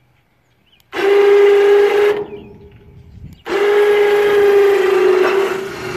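ATV electric winch on a truck-bed crane running twice under load, with a set of pallet forks hooked on: a steady whine over a hiss, first for about a second, then for nearly three seconds.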